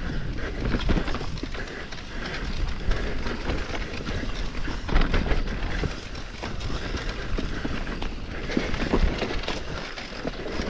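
Electric mountain bike descending a steep loamy dirt trail: tyres rolling over dirt and roots, with a steady low rumble and frequent knocks and rattles from the bike.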